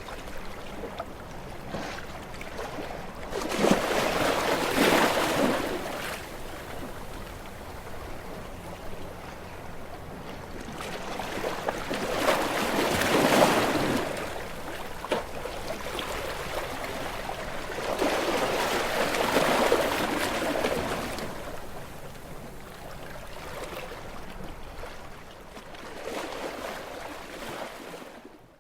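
Sea waves breaking against rocks: four surges of rushing water about seven seconds apart, with a lower wash of water in between. The sound cuts off abruptly at the very end.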